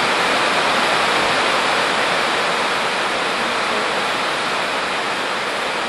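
Steady rushing hiss of water running, easing off slightly toward the end.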